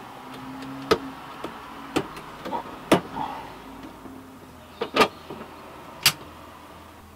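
Circuit-breaker and RCD toggle switches in a consumer unit being flicked by hand: a series of sharp clicks, roughly one a second, with a few lighter ticks between them over a faint steady hum.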